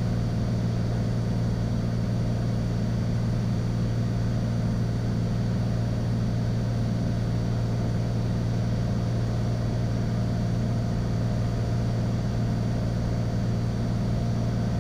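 Cessna 182 Skylane's single piston engine and propeller droning steadily in cruise, a low, even hum that does not change.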